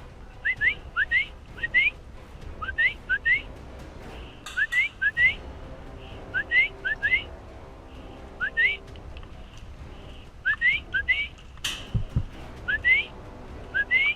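A bird calling over and over: short rising whistled notes, mostly in twos and threes, repeated every second or so. A few sharp cracks cut in, the loudest just before the end.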